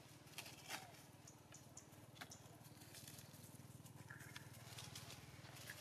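Faint, scattered crackles of dry leaf litter as baby monkeys move over it, with a brief high chirp about four seconds in, over a low steady hum.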